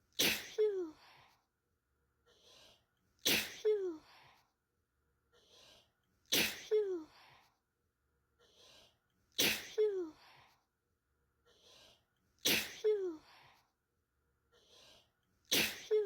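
A person sneezing, the same sneeze repeating identically about every three seconds, six times: a short faint in-breath, then a sharp sneeze ending in a voiced 'choo' that falls in pitch.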